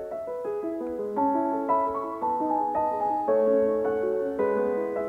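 Background piano music: a flowing run of notes over held lower notes.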